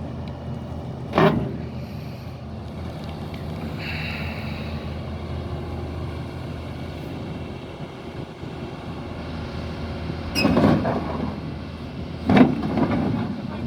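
Heavy diesel engine running steadily, with three loud bangs: one about a second in, and two close together near the end.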